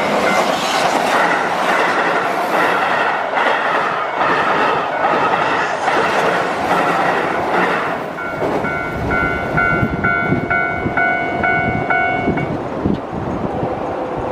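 Keihan electric train running over a steel railway bridge, wheels clattering over the rail joints and the girders ringing. From about eight seconds in, as the train noise eases, a bell-like ding repeats about three times a second, stopping shortly before the end.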